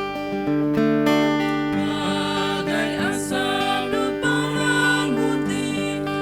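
Acoustic guitar strummed as accompaniment, with voices singing a hymn along with it.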